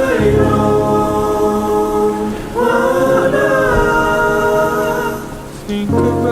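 Music: long held sung notes in layered, choir-like harmony over a bass line. The notes dip briefly about five and a half seconds in, then come back.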